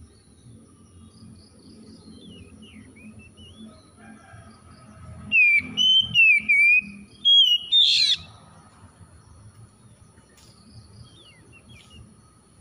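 Oriental magpie-robin singing: a few soft chirps, then about halfway through a loud burst of clear whistled phrases that slide up and down, followed by a few faint chirps near the end.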